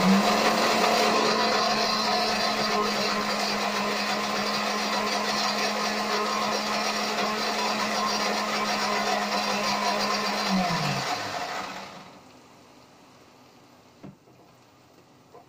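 Electric mixer grinder (mixie) running steadily, grinding chutney, then switched off about ten and a half seconds in, its motor winding down in pitch and falling quiet over the next second or so.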